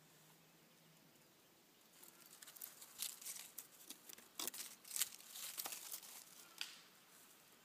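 Irregular rustling and sharp crackling of dry leaf litter and twigs, starting about two seconds in and dying away near the end.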